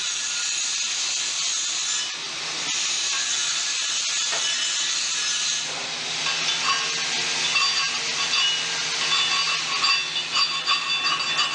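Shielded metal arc (stick) welding: the electric arc hisses steadily, then about halfway through turns to an irregular crackle with sharp spits.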